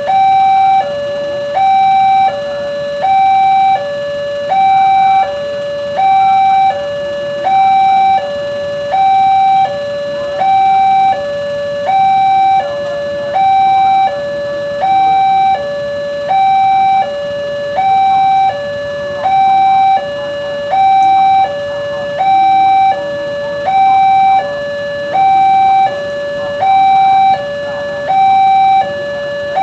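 Railway level-crossing warning alarm sounding its electronic two-tone signal, a higher and a lower tone alternating about once a second, the higher one louder: the crossing is closed for an approaching train.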